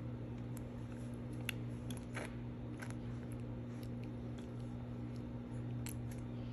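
Baby gnawing and mouthing a plastic spinner toy: a few small sharp clicks and wet mouth sounds, over a steady low hum.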